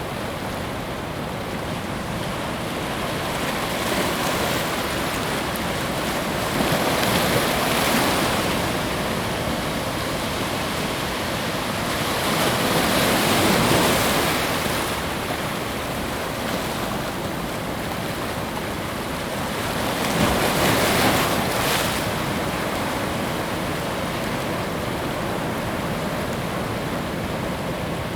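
Ocean surf washing onto a beach: a steady rush of water noise that swells as waves break, about four times, then eases back.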